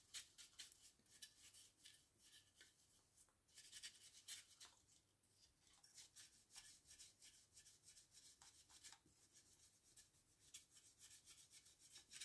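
Faint, quick scratchy strokes of a dry brush's bristles flicking across a plastic miniature, dry-brushing a light highlight onto its wings. They come in flurries, busiest about four seconds in and again near the end.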